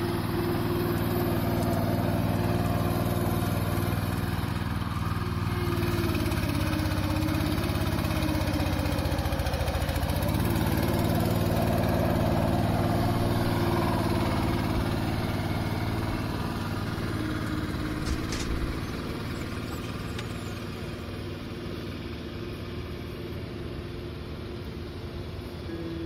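Small ride-on turf roller's engine running steadily as it drives across grass, growing fainter in the last third as the machine moves away.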